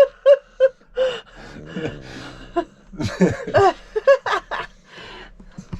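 A man laughing softly in short bursts, with a few more voice-like chuckles later on.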